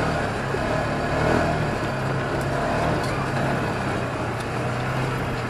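Off-road buggy engine running steadily at low speed while driving along a rough dirt track, with the even rush and rattle of the ride over it.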